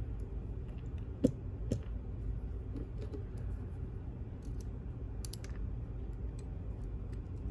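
Light metallic clicks and taps of small lock pins and tweezers while a high-security pin-tumbler cylinder is taken apart: a few scattered clicks, the sharpest about a second in, over a low steady hum.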